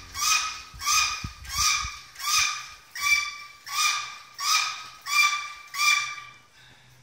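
Hydraulic engine hoist being pumped by hand, squeaking with each stroke of the pump handle at an even pace of about one and a half strokes a second; the pumping stops near the end.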